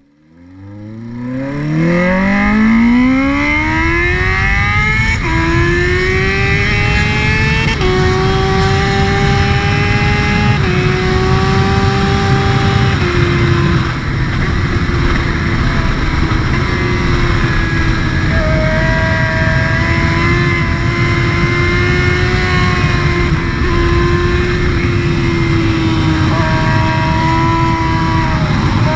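Honda CBR600F inline-four sport bike engine accelerating hard from low revs, its pitch climbing steeply over the first five seconds. It then runs at fairly steady high revs with small dips and rises in pitch. The exhaust is heard close up, over a constant low rumble of wind noise.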